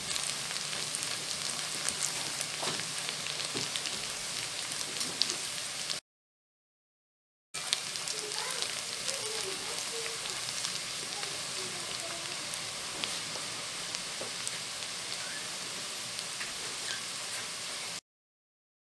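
Chopped onions and whole spices sizzling in hot oil in a nonstick wok, an even hiss with fine crackling as the onions brown. The sound cuts out completely for a moment about six seconds in and again near the end.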